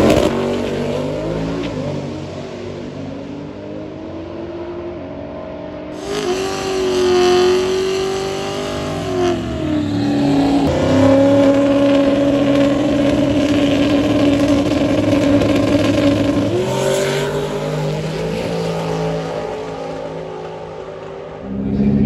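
Drag cars' engines on a drag strip. A Nissan GT-R runs hard and fades as it pulls away. After a cut, a Buick Grand National revs at the starting line, holds steady revs for several seconds, then revs higher.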